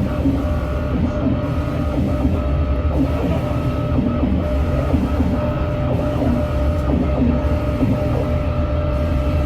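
Loud live rock band playing a noisy, distorted piece, with guitar tones held steady over a heavy bass drone.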